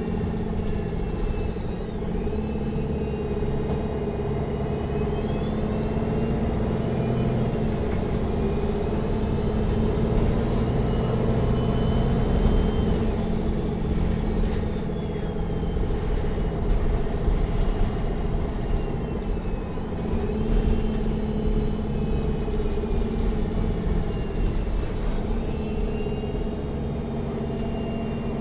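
Neoplan N4516 Centroliner Evolution city bus heard from inside while driving: the diesel engine runs with a steady rumble while a drivetrain whine rises as the bus gathers speed, peaks about halfway through, falls away as it slows, then climbs briefly again later.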